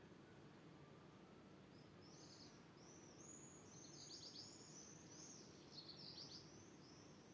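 A songbird singing faintly: a run of quick, high, arching notes starts about two seconds in and goes on to near the end, over a faint, even background rumble.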